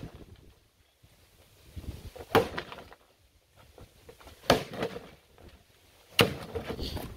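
Three heavy blows about two seconds apart: a long-handled hammer smashing down into a cardboard box, each strike a sharp thud with a brief crunch of cardboard after it.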